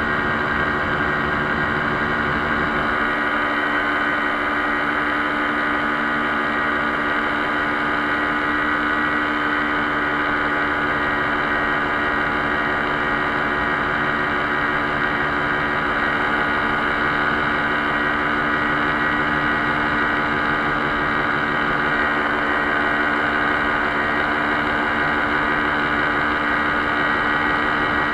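Paramotor engine and propeller running steadily in flight, a constant unchanging drone with no change in pitch.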